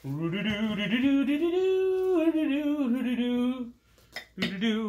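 A man singing a wordless "la-da-dum" tune, holding long wavering notes, then two short clicks and the singing starting again near the end.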